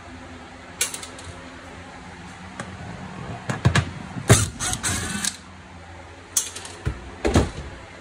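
A cordless drill working the screws out of a microwave's metal mounting trim: a run of sharp clicks and knocks, bunched near the middle and again near the end.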